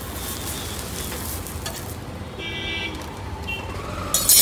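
Oil sizzling on a flat iron griddle with parathas frying, the hiss thinning a couple of seconds in. Twice in the middle a short horn-like tone sounds, and just past four seconds a brief loud clatter is the loudest sound.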